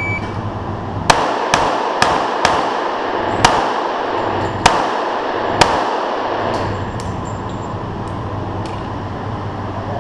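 Seven pistol shots from a 1911 in .45 ACP, fired in an uneven string over about four and a half seconds, each ringing off the walls of an indoor range. A few fainter clicks follow.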